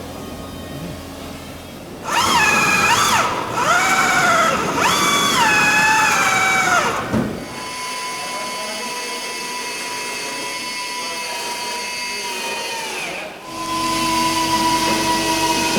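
Power drill drilling out steel rivets. Its whine sags and recovers in pitch several times as the bit bites, then runs at a steadier pitch from about eight seconds in, with a brief dip shortly before the end.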